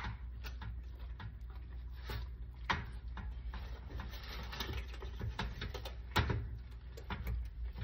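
Scattered clicks and knocks of a baking dish and utensils being handled in a kitchen, with a brief rustle about four seconds in, over a low steady hum.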